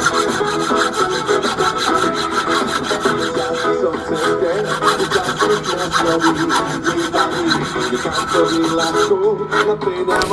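A hand saw cutting through bone for a knife handle, rasping back and forth in quick strokes that pause briefly near the end. A radio plays music underneath.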